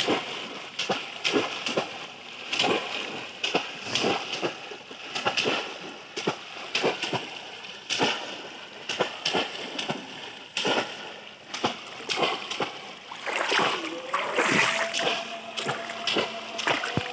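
Repeated heavy splashing in shallow floodwater as bamboo cone fish traps and hands are plunged and slapped down, roughly one to two splashes a second. A long steady tone joins in over the last few seconds.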